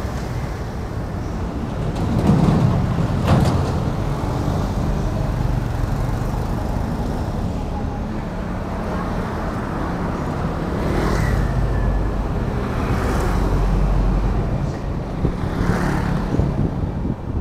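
Road traffic on a city street: cars driving past, the loudest passing about two to three seconds in, with a low rumble of traffic swelling again later.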